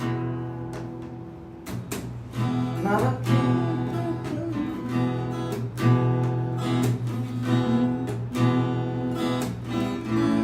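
Background music: acoustic guitar strumming at a regular pace through an instrumental break of a Bengali folk-style song, with no singing.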